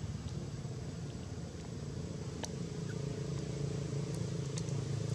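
Steady low mechanical drone, with a few faint sharp clicks about halfway through and again near the end.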